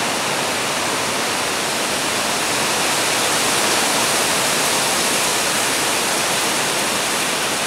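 A steady, even rushing hiss with no change or break.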